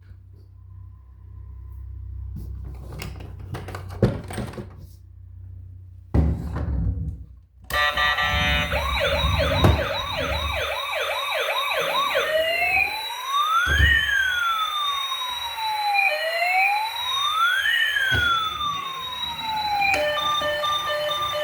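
A few knocks and handling noises, then about eight seconds in a toy emergency vehicle's electronic siren switches on. It gives a fast yelp for a few seconds, then slow rising and falling wails, and changes near the end to a steady pulsing tone.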